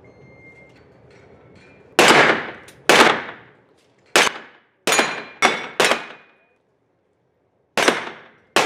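A short faint beep like a shot timer's start signal, then eight pistol shots in uneven groups over about seven seconds: two, then four, then two. Each shot rings out in the reverberation of an indoor range.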